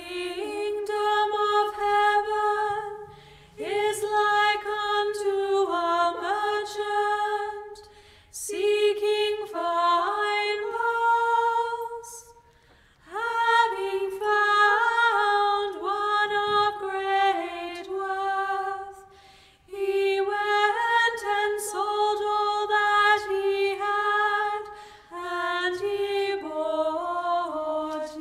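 A high solo voice singing a slow, unaccompanied melody in sustained phrases of a few seconds each, with short breaks between them.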